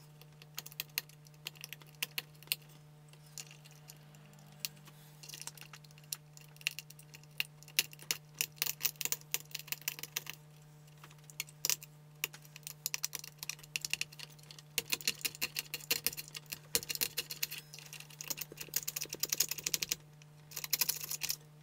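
Old hardened glue being scraped and picked off a vintage radio amplifier's circuit board with a small hand tool: irregular clusters of small clicks and scratches, with short pauses between them.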